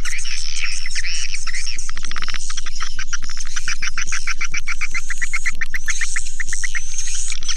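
Swiftlet call sound: dense, high twittering of many swiftlets, with a fast run of clicking chirps through the middle, the kind of lure call played to draw swiftlets to a nesting house.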